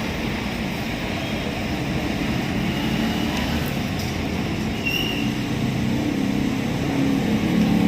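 Diesel engine running steadily after start-up.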